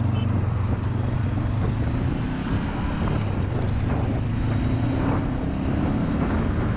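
Motorcycle engine running steadily as the bike rides along, its pitch rising gradually through the middle as it accelerates.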